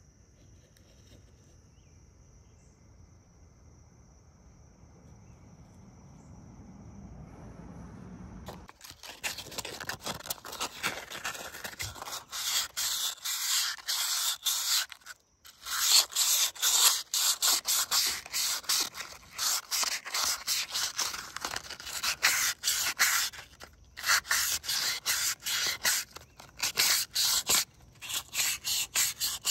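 Hand sanding with a strip of sandpaper inside the metal bore of a VW TDI ALH vacuum pump housing, to smooth out scratches in the bore. After a quiet first eight or nine seconds it comes in as rapid back-and-forth scrubbing strokes, several a second, pausing briefly a few times.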